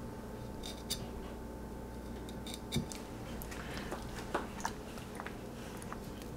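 Handling noise as a slimy burbot is turned over on a bamboo cutting board: scattered light taps and clicks of the fish and knife against the wood, with one dull thump near the middle. A steady low hum runs underneath.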